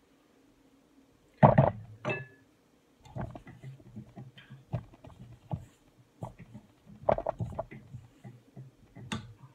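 Kitchen utensils against a stainless steel mixing bowl: a loud knock about a second and a half in, then a second knock with a brief metallic ring, followed by a silicone spatula scraping and tapping around the bowl as stiff peanut butter cookie dough is worked and pressed together.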